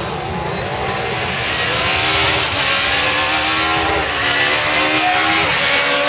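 Renault Clio S1600 rally car's high-revving 1.6-litre four-cylinder engine under hard acceleration as the car comes toward the listener, its note climbing steadily in pitch.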